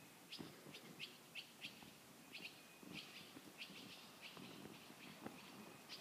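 Small birds chirping faintly: short, high chirps repeated in quick runs, with a brief pause about two seconds in.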